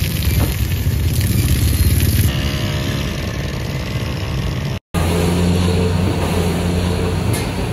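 Motor vehicle engines running close by in street traffic, motorcycle-like, with a steady low hum. The sound breaks off into silence for a moment just before five seconds in, then the engines carry on.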